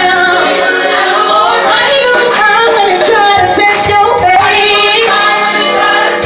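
A woman singing a gospel song into a microphone over a church sound system, her voice sliding through pitch bends and runs.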